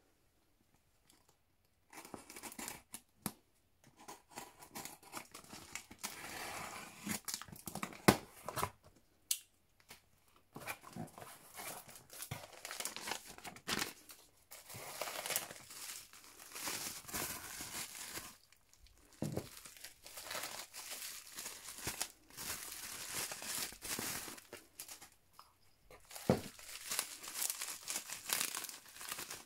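Hand unboxing of a cardboard shipping box: packing tape cut and torn, cardboard flaps opened, then bubble-wrapped jars handled and the bubble wrap crinkling and rustling. Irregular handling noise begins about two seconds in, with scattered sharp clicks and knocks, the loudest about eight seconds in.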